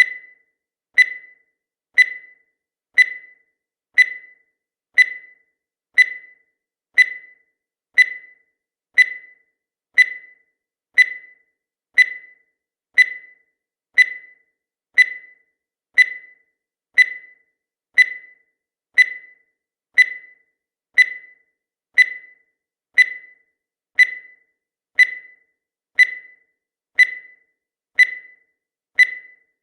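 Countdown timer sound effect: a short high beep once a second, each one dying away quickly.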